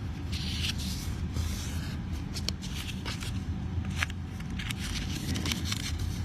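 Colored printer paper being folded and creased by hand: soft rustling with scattered crisp ticks, over a steady low hum.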